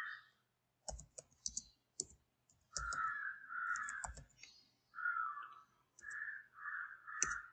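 Computer keyboard keys clicking as a file name is typed, in short runs over the first four seconds, with one more click near the end. A run of short, evenly repeated calls sounds faintly in the background.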